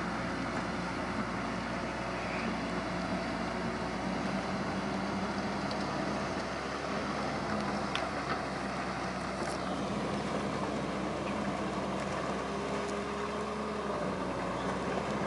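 Diesel engine of an amphibious excavator running steadily as it digs and reaches with its long arm.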